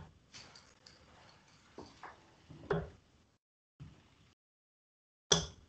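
Steel-tip darts striking a Winmau Blade bristle dartboard: a few sharp thuds a second or two apart as a player throws a three-dart visit. The sound comes over a video-call link, cutting out to silence between the hits.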